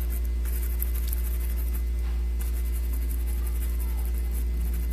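Stencil brush scrubbing paint onto tricoline fabric through a stencil, in faint, soft scratchy strokes, over a loud, steady low hum.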